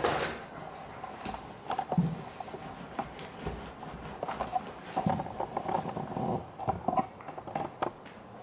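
Hands working loop-pile Berber carpet edges together over hot-melt seam tape: irregular rustling and scraping of carpet with scattered light knocks.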